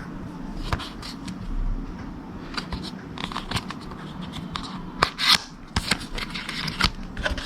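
Cardboard and paper packaging being handled: irregular rustles, scrapes and light clicks as a watch box is worked open.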